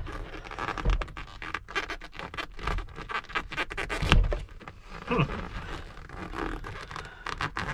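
Metal hand tool clicking and scraping against the armrest pivot of a van bucket seat as it is pried at to free the armrest, with a dull thump about four seconds in.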